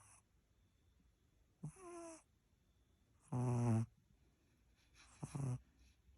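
A sleeping pet snoring: three short snores spaced about one and a half to two seconds apart, each a brief note with a clear pitch, the middle one the loudest.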